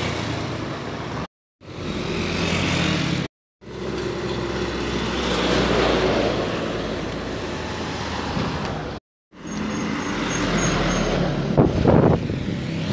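Trucks driving past close by on a road, their engines and tyres loud, in short segments split by abrupt silent cuts. The loudest is a dump truck going right past about six seconds in, and a few sharp knocks come near the end.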